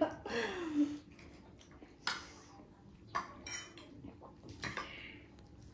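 Eating utensils clinking and scraping against dishes during a meal, three or four short separate strokes about a second apart.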